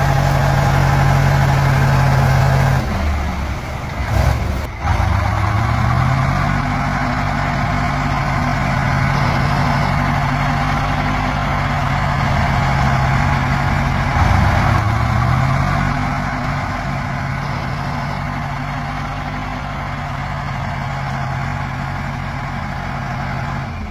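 Engine of a six-wheel-drive army truck working through muddy ruts at low speed. Its steady note drops about three seconds in, with a couple of knocks a second or two later, then climbs again as it revs; it rises once more around the middle.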